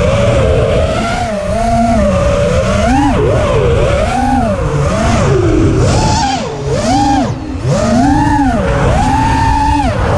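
Brushless motors of an FPV racing quadcopter, heard from the onboard camera, whining up and down in pitch about once a second as the throttle is worked, over a low wind rumble. The whine briefly drops away twice a little past halfway.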